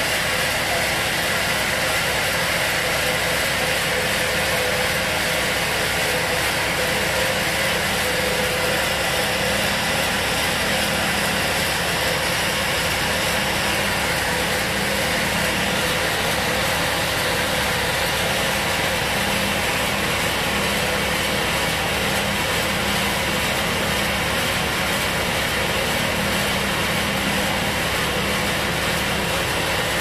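Large vertical band sawmill running idle between cuts, its blade clear of the wood: a steady, unchanging machine drone.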